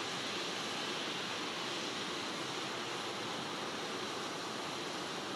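Boeing 737 jet engines running steadily on the ground, a constant rushing hiss with no change in pitch or level.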